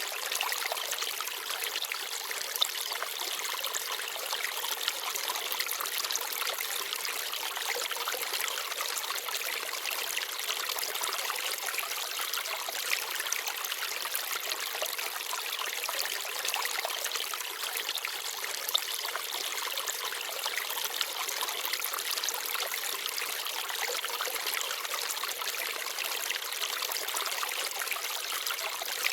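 A small forest stream babbling steadily over stones, with a few sharper splashes standing out briefly.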